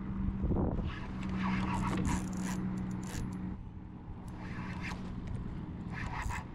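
Spinning reel working against a large barracuda: repeated bursts of a raspy, zipper-like whirring as line is reeled and pulled. A steady low hum runs underneath and stops about three and a half seconds in.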